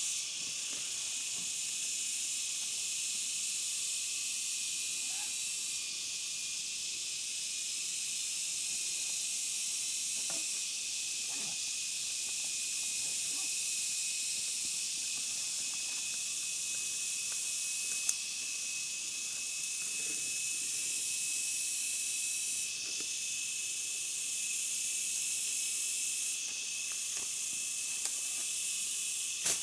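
Steady, high-pitched chorus of insects in woodland, an even shrill hiss, with a few faint clicks now and then.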